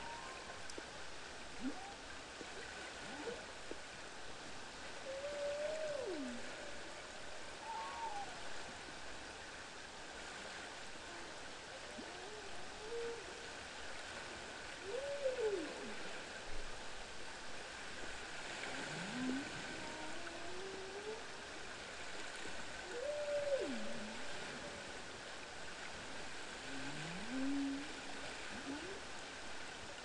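Underwater recording of a bowhead whale calling: a series of short calls that glide up and down in pitch, one every few seconds, over a steady hiss of sea noise.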